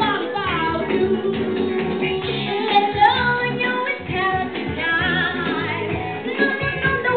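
Live pop song: a singer's voice through a microphone and PA over continuous backing music with a steady bass line.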